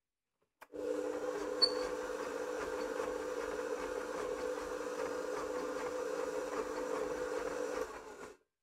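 Kenwood Titanium Chef Baker XL stand mixer running with its beater turning in the empty small stainless bowl: it starts under a second in, hums steadily, and is switched off near the end, running down briefly.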